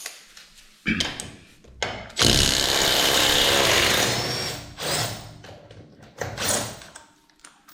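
Milwaukee M18 1/4-inch hex impact driver with a 1/2-inch adapter hammering on a lug nut tightened to 80 ft-lb. A couple of short bursts give way, about two seconds in, to some two seconds of continuous hammering, and then a few shorter bursts as the nut comes off.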